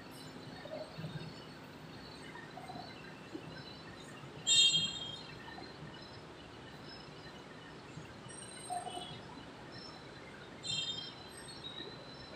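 Quiet room noise with two short, high-pitched chirps, a louder one about four and a half seconds in and a fainter one about ten seconds in.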